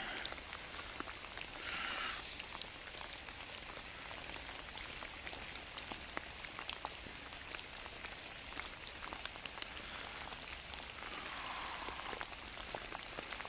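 Steady rain, heard as many small separate drop ticks over a soft even hiss.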